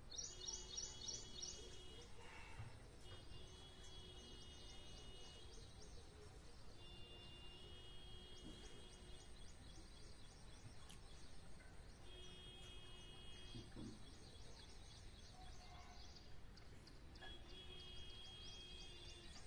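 Faint background music: a short phrase of high held notes with quick trilling ticks and a low note under them, repeating about every five seconds over a quiet hiss.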